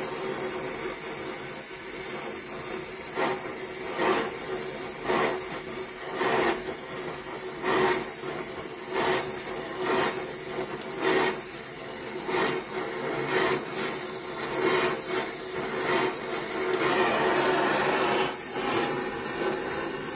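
Donmet 132A micro gas welding torch flame hissing steadily on a steel heating pipe, with short crackling bursts about once a second as filler wire is worked into the weld and sparks fly; the crackles stop for the last few seconds, leaving the flame's steady hiss.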